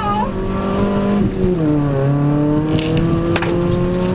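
Toyota Corolla's 1.6 L 4A-FE four-cylinder rally engine heard from inside the cabin, running hard under load. The revs drop about a second and a half in, then climb steadily as the car accelerates, with a single sharp click near the end.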